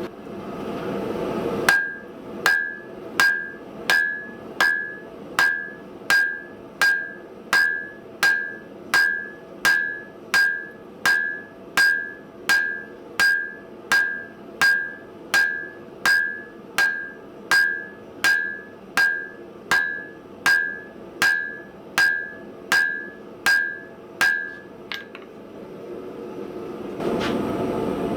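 Hand hammer striking hot round steel bar on an anvil in a steady rhythm of about one and a half blows a second, each blow with a short bright ring. The hammering starts about two seconds in and stops a few seconds before the end, with a steady rushing noise before and after it.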